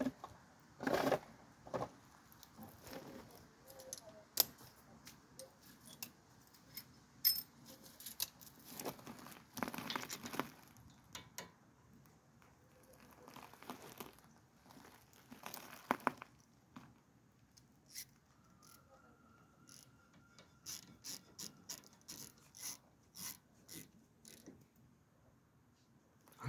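Scattered metal clicks, clinks and scrapes of brake parts and hand tools being handled while front brake pads and shims are fitted.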